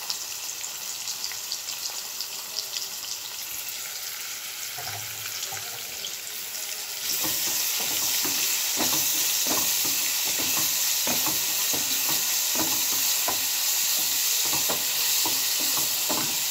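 Sliced onions sizzling in hot oil in a steel pan. About seven seconds in the sizzle gets louder as a wooden spatula starts stirring, with irregular scrapes and taps against the pan.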